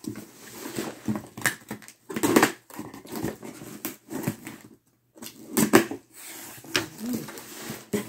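Scissors cutting and scraping through packing tape on a cardboard shipping box, with irregular scrapes, knocks and cardboard rustling as the box is handled. The louder scrapes come about two seconds in and again near six seconds.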